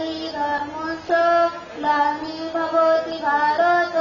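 Children singing together into a microphone: held notes in short phrases that step up and down in pitch, with brief breaks between phrases.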